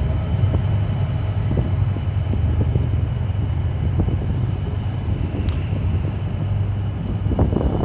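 Train engine running with a continuous low rumble and faint steady whining tones above it.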